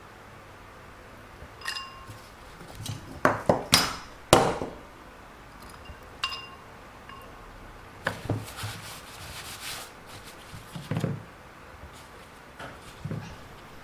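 Objects being handled on a work surface: two light clinks that ring briefly, a quick run of louder knocks and clatter, some rustling, and a few more knocks.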